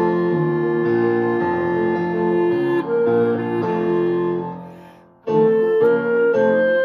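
Clarinet playing held melodic notes over a piano accompaniment. The music fades away to a short pause about five seconds in, then both come back in.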